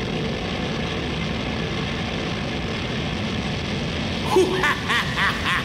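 A steady rushing noise, a spooky sound-effect ambience. Near the end a high cackling laugh begins in quick repeated bursts.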